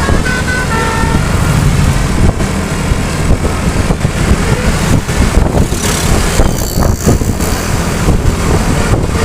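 A telolet bus horn finishes its tune with a few short falling notes in the first second. A heavy bus engine and road noise then run on as a loud low rumble.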